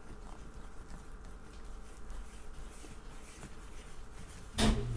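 A hand working flour and oil in a plastic bowl: faint soft rubbing and scraping. Near the end a sudden thump, then a washing machine starts a steady low hum.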